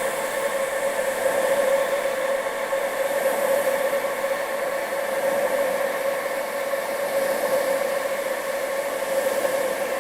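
Steady wind sound with a constant hum running under it and a high hiss that swells and fades every few seconds.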